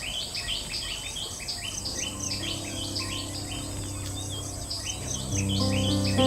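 Birds chirping in quick, evenly repeated notes, about four or five a second, over a steady high insect whine. Soft sustained music notes come in about two seconds in and grow louder near the end.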